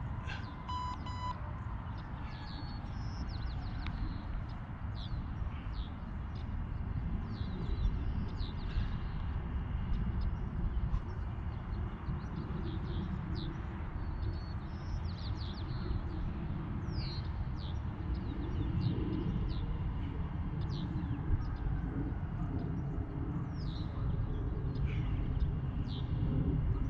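Small birds chirping over and over, short quick calls scattered throughout, over a steady low rumble of wind on the microphone. A few short electronic timer beeps about a second in.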